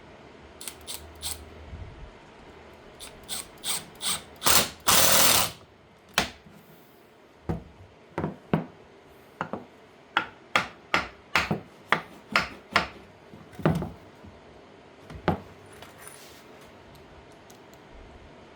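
Woodworking tool worked in short, sharp mechanical clicks and bursts at irregular spacing, one longer burst about five seconds in, during glue-up and assembly of a poplar table.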